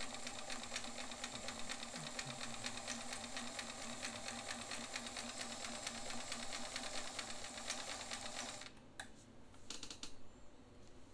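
Vintage Bernina sewing machine stitching a continuous zigzag at an even pace, a rapid steady ticking with no break in the rhythm, then stopping suddenly about three-quarters of the way in; a few light clicks follow. The unbroken rhythm is the test for worn or cracked gears, which would show as a stitch interruption.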